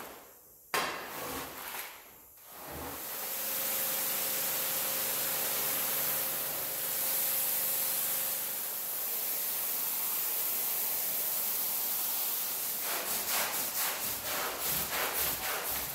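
Pressure-washer spray hissing steadily onto a wet rug, then a stiff push broom scrubbing the foamy rug near the end, about three strokes a second.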